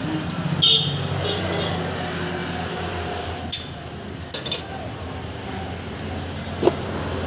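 Several sharp clinks and knocks of containers, lids and utensils being handled on a steel counter, over a steady low background hum.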